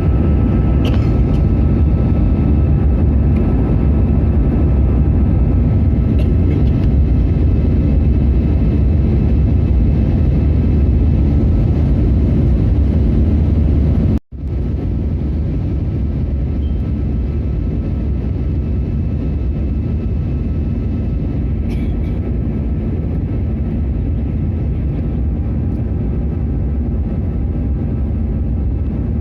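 Steady cabin noise of an Airbus A320-200 in cruise: a deep rumble of airflow and engines with a faint steady hum. It drops out for an instant about halfway through and comes back slightly quieter.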